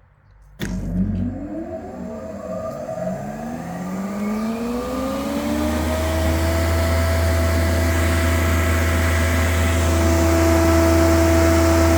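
Martin T53 surface planer (jointer) switched on with a click, its motor and cutterhead spinning up with a rising whine for about five seconds, then running steadily at full speed with no wood being cut.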